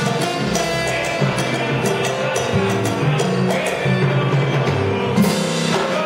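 Live salsa band playing: congas and timbales beating out the rhythm over keyboard and upright bass.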